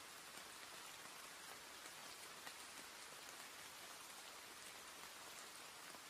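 Faint, steady hiss of rainfall with scattered soft drop ticks.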